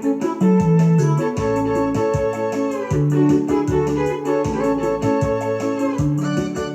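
Instrumental break of a Swahili gospel song: electronic keyboard chords over bass notes and a steady drum beat, starting abruptly and loud.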